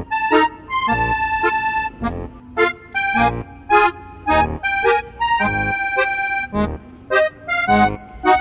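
Background music: an instrumental tune of held chords and melody notes over a bass beat about once a second.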